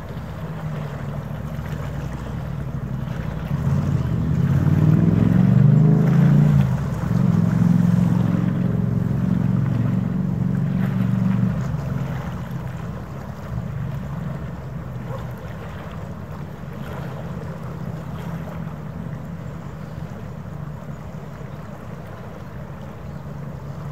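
Low, droning engine rumble from a vessel in the harbour, swelling about four seconds in, loudest for several seconds, then fading after about twelve seconds. Wind buffets the microphone underneath.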